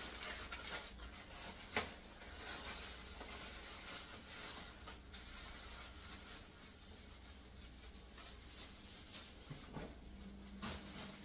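Faint rustling of a plastic bag being handled, with a sharp click about two seconds in and a few lighter knocks; a faint steady hum comes in near the end.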